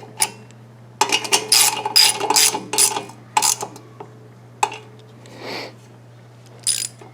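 Socket ratchet clicking as it turns 10mm bolts, with a quick run of ratchet clicks for about two and a half seconds, then a few single clicks.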